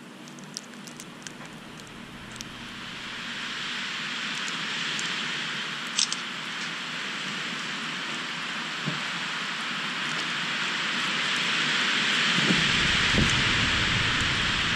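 Wind gust in a night-time snowstorm, its hiss of wind-blown snow swelling steadily louder, with a few light ticks. Near the end, low buffeting of wind on the camera microphone joins in.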